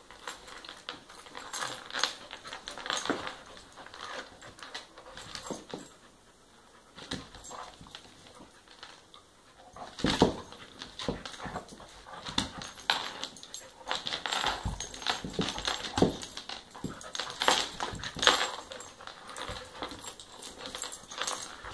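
An American pit bull terrier and a dachshund puppy play-fighting: bursts of dog vocal sounds mixed with irregular scuffles and knocks on a wooden floor. The loudest bursts come about ten seconds in and again near the end.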